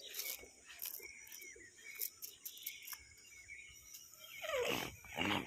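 Cast net being set down and handled on bare earth: the mesh rustling and scraping, with scattered light clicks and a louder rustle near the end.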